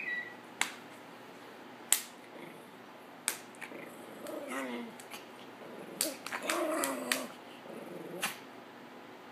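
Small dog growling in short, wavering snarls, twice, while several sharp smacks ring out a second or more apart.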